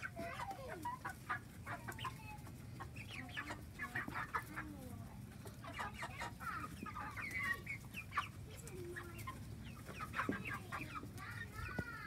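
A small flock of 12-week-old chickens clucking and chirping with many short calls while they feed.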